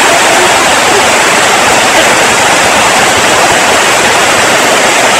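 Steady, loud rushing noise with no breaks, even from low to high pitch.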